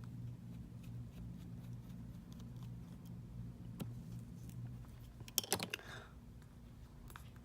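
Faint small clicks and ticks of a tri-point screwdriver and tools working the tiny screws on an iPhone's earpiece bracket, over a steady low hum. A short cluster of louder clicks comes about five and a half seconds in.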